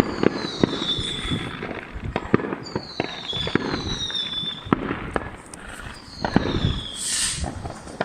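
Many fireworks going off in quick, overlapping succession: sharp bangs near and far, with several whistling fireworks, each whistle falling in pitch. About seven seconds in there is a louder hissing, crackling burst.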